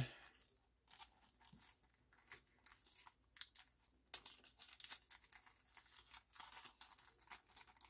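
Faint crinkling and rustling of a small plastic bag of cartridge mounting screws and nuts being opened by hand, as a scatter of short crackles.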